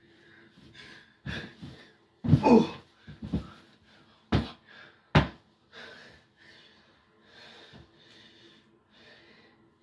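Heavy, wheezing breaths of a man exerting himself, with several thuds as his body slams down onto a stack of mattresses. The loudest crash is about two and a half seconds in, and two sharp ones follow near four and a half and five seconds.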